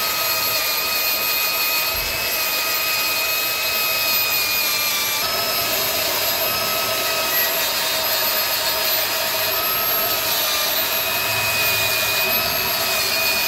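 Angle grinder with a wire wheel running steadily with a high whine as it scrubs rust off the differential housing's diff lock actuator mounting face. Its pitch dips slightly about five seconds in.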